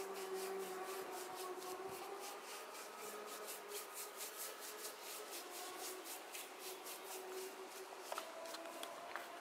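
A small hand tool scraping over the surface of a cast cement baluster in quick, regular strokes, about three to four a second. A steady hum with several pitches sounds underneath and fades away.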